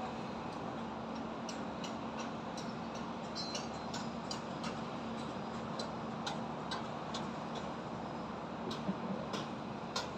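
Building construction site ambience: a steady hum and rush of machinery and traffic, with a run of sharp ticking clicks starting about a second and a half in, roughly two a second and unevenly spaced.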